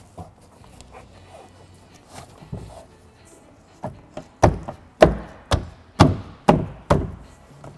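A 2004 Subaru Impreza WRX door trim panel being thumped by hand to seat its retaining clips into the door. There is light handling and a few faint clicks, then, about four seconds in, a run of seven heavy thumps at about two a second.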